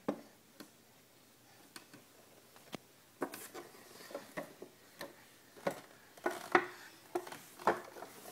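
Wooden baby push cart knocking and clattering as a baby handles it and bumps it along a hardwood floor: irregular sharp knocks, sparse at first and more frequent from about three seconds in.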